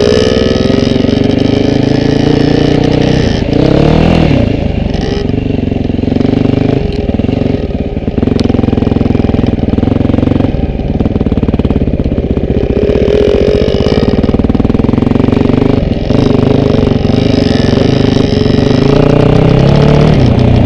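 Yamaha RT180 two-stroke trail bike engine, close by, revving up and down as the throttle opens and closes over the trail, with brief drops in power and a few quick rises in pitch.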